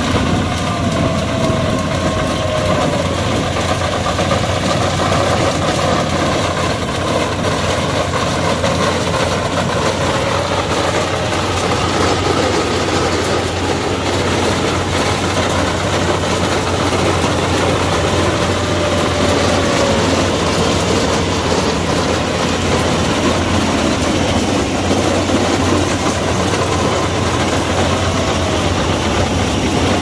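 Yanmar AW82V combine harvester cutting rice: its diesel engine and threshing machinery run steadily and loudly, with a faint whine that wavers a little in pitch.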